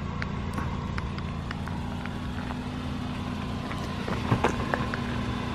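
Car engine idling steadily, with a few light clicks about four seconds in.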